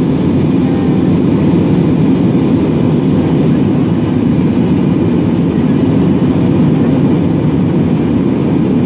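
Steady cabin noise of an Airbus A320-family jet airliner in cruise: engine and airflow noise heard inside the cabin at a window seat, an even low rumble that stays the same throughout.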